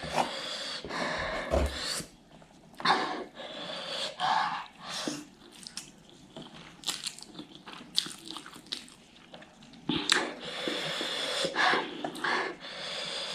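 A person chewing and biting into ghost pepper noodles close to the microphone, with short wet clicks and some heavy breaths in between.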